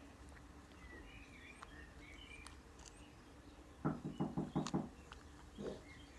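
Faint bird chirps, then a quick run of about six short knocks about four seconds in and one more soon after.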